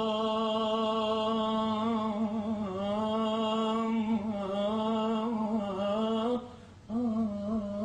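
A solo male voice singing a nasheed into a microphone, holding long notes with wavering, ornamented turns. It breaks off for a breath about six and a half seconds in, then takes up the note again.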